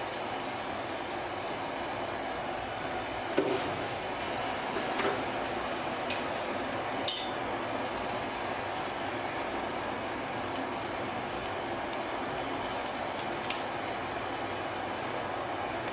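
Coal forge burning hard, a steady rushing noise from the fire and its air blast. A few sharp metallic clinks from the tongs and steel against the forge break through it.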